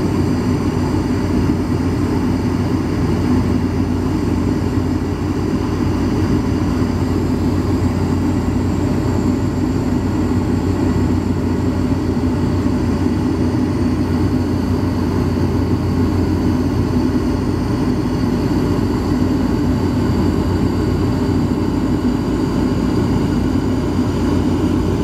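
Cabin noise of a Bombardier Dash 8 Q400 turboprop airliner in flight: a loud, steady, deep drone of propellers and engines that does not change.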